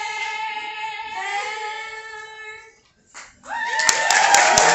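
Young performers singing together, holding a note that steps to a second held note about a second in and stops just before three seconds. After a short pause the audience breaks into cheering and applause.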